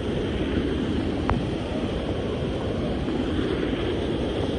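Floodwater rushing down a debris-choked desert wash: a steady, fairly loud rumbling rush of water, with one brief click about a second in.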